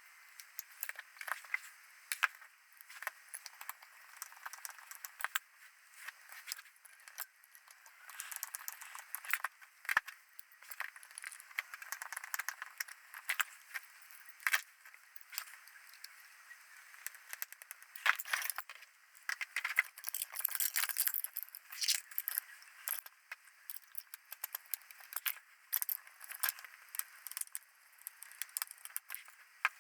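Small metal and plastic parts and hand tools clicking, tapping and scraping irregularly as a small camera unit is reassembled by hand.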